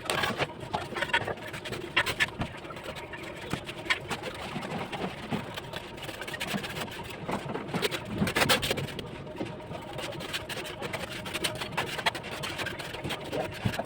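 Bricklaying work: a steel trowel tapping and scraping on bricks and mortar in irregular, closely spaced clicks and knocks.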